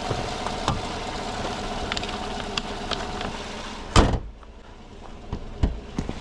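Steady road and engine noise inside a moving pickup truck's cab, with a few light clicks. A sharp thump comes about four seconds in, after which the noise is much quieter.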